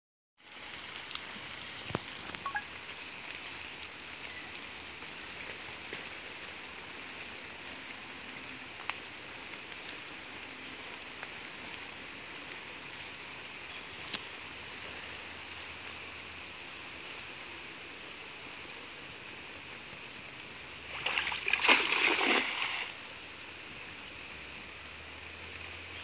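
Steady sound of river water running, with a few scattered light clicks. Near the end comes a louder splash of water lasting about two seconds.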